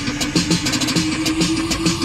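Music with a fast, even drum beat playing on a car stereo, with the car's engine and road noise running steadily beneath it; a held note comes in about half a second in.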